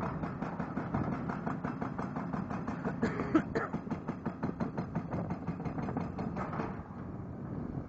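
CMB RB26 hydraulic rock breaker on a Kato HD1430 excavator hammering a dolomite boulder in rapid, even blows, several a second, stopping about a second before the end.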